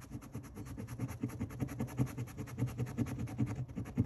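A coin scratching the silver coating off a circle on a paper scratch-off card in quick, even back-and-forth strokes, many a second.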